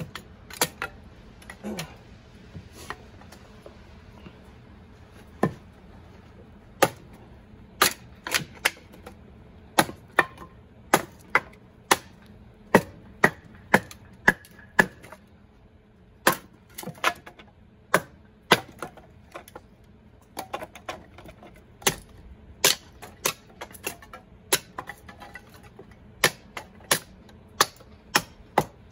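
Hatchet chopping kindling on a wooden chopping block: sharp knocks of the blade biting into and splitting small sticks, about one to two a second and often in quick pairs, with a few short pauses.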